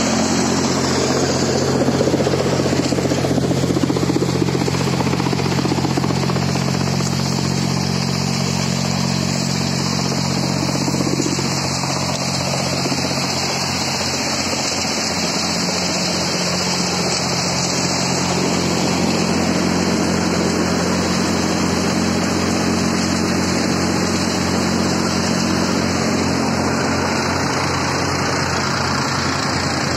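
Tractor-driven multicrop thresher running: the tractor's diesel engine hums steadily under load while the thresher's drum and blower whir with a constant rushing hiss.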